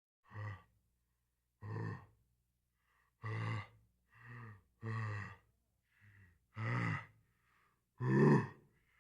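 A man's voiced, gasping "ah… ah…" catches of breath building up to a sneeze: about eight short bursts, getting louder toward the end.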